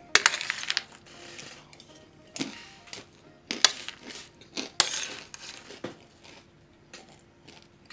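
Spoon clinking and scraping against a baking tray of coated peanuts: several separate sharp clicks and short scrapes, about a second apart.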